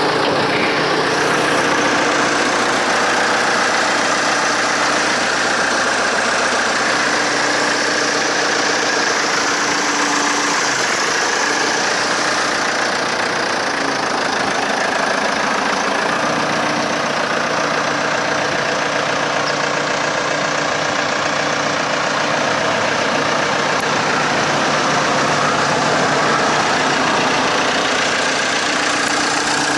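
Ahlmann AZ10 wheel loader's diesel engine idling steadily.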